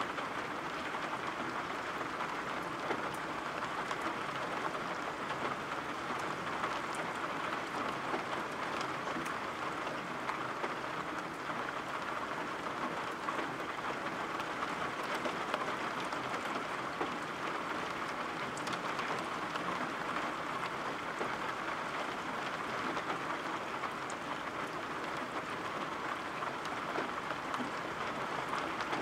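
Steady rain falling: an even hiss with a few faint ticks of single drops scattered through it.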